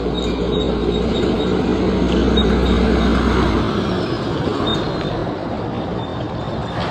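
Road traffic noise: a heavy vehicle's low engine rumble swells as it passes and falls away about four seconds in, leaving lighter steady traffic noise.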